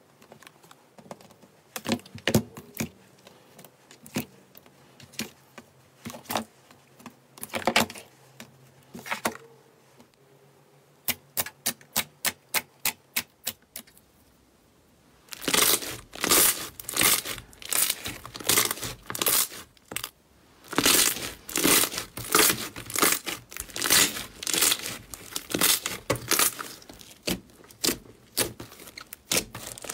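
Hands pressing, poking and squishing soft foamy slime, which gives sticky crackles and pops. The clicks are sparse at first, with a quick run of evenly spaced clicks shortly before the middle, and then a dense, louder stretch of crackling from about halfway.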